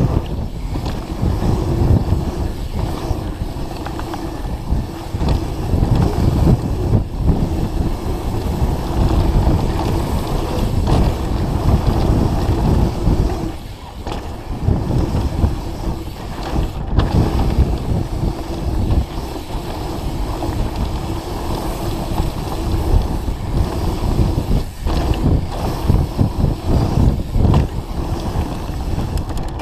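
Mountain bike descending a dirt trail at speed: wind rushing over the mounted camera's microphone, mixed with tyre rumble and the rattle of the bike over bumps. The noise eases briefly about halfway through.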